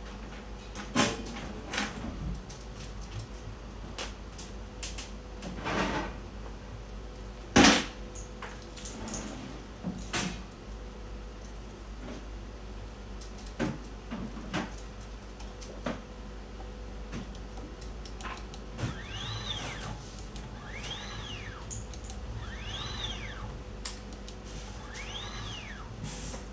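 Multimeter probes and a wiring-harness connector being handled, giving scattered light clicks and knocks with one sharper knock about a third of the way in. Over a steady mains hum, four short whines follow near the end, about two seconds apart, each rising and then falling in pitch.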